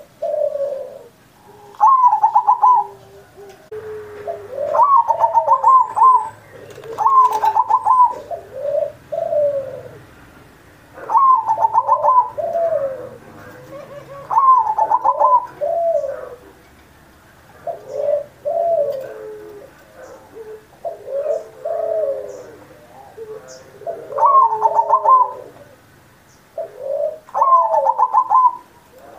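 Zebra dove (perkutut) cooing its full song over and over: each phrase opens with a quick stuttering trill and ends in lower, drawn-out coo notes, repeated every few seconds with short pauses between.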